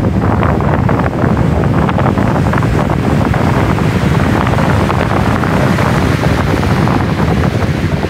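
Heavy typhoon-driven surf breaking and washing up a gravel beach, a steady loud rush of water, with wind buffeting the microphone and adding a low rumble.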